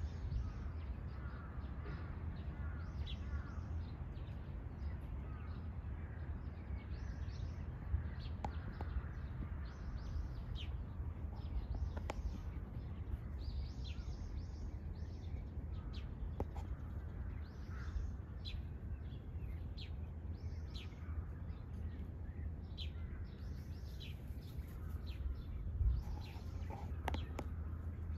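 Small birds chirping in many short, repeated calls over a steady low outdoor rumble, with a few sharp clicks.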